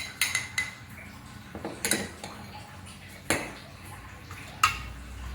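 Cutlery clinking against a plate while eating: a handful of short, sharp clinks spread over a few seconds, the loudest one near the end.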